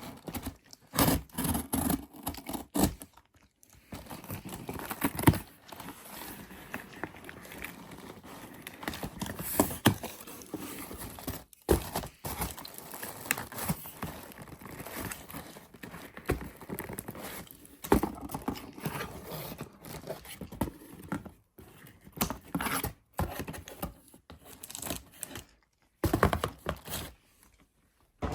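Household objects being handled: irregular knocks, taps and scrapes with some crinkling, with brief pauses between them.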